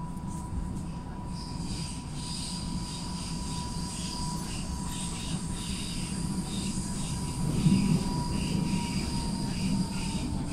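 Class 423 S-Bahn electric multiple unit running, heard from inside the passenger car: a steady low rumble from the running gear, a steady thin whine, and a hiss of wheels on rails, briefly louder about eight seconds in.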